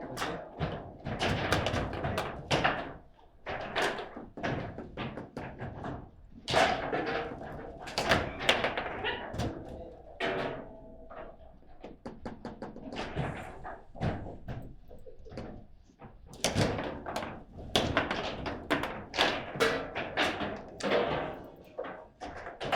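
Table football game in play: an irregular, rapid run of sharp knocks and thunks as the ball is struck by the rod figures and bangs against the table walls and goal.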